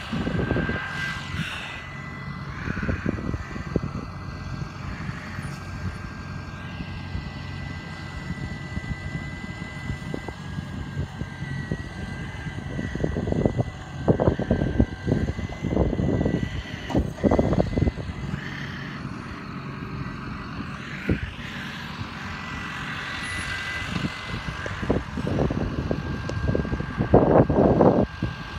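Farm tractor engine running steadily as its front loader with a bale grab handles wrapped round bales, with louder irregular rumbling surges around the middle and near the end.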